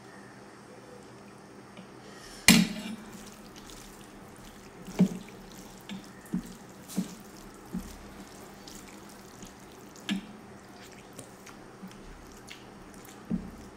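Wet eating sounds of rice and fish curry mixed and eaten by hand: soft sticky smacks and clicks about once a second. About two and a half seconds in there is one sharp metal clink, the loudest sound, as the ladle is set down in the curry bowl.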